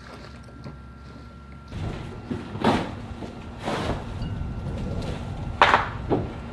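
A faint steady hum, then several sharp knocks and clattering bangs over a rushing background, the loudest about five and a half seconds in.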